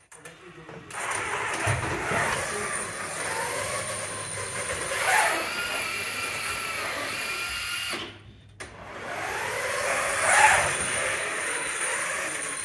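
FRC competition robot driving: its electric drive motors whine, the pitch rising and falling as it speeds up and slows. The sound drops out briefly near the start and about eight seconds in.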